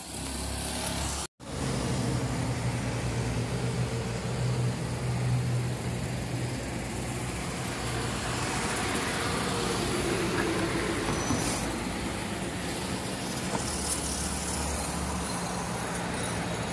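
Road traffic on a city avenue: cars and a bus driving past, engines and tyre noise, steady throughout. The sound cuts out briefly about a second in.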